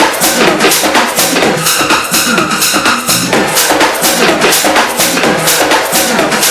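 Tech house dance music with a steady, driving drum beat.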